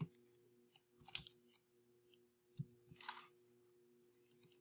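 Near silence with a few faint, scattered clicks of computer keyboard keys and a mouse, over a faint steady electrical hum.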